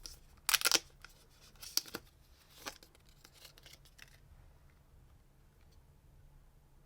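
AirPods box and packaging being handled, giving a handful of short rustles and scrapes over the first four seconds.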